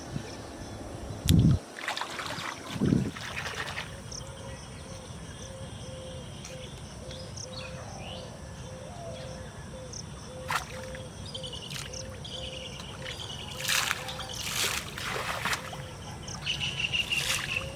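Outdoor pond ambience: a short repeated call about twice a second throughout, birds chirping near the end, and a few short water splashes, with two low thumps in the first three seconds.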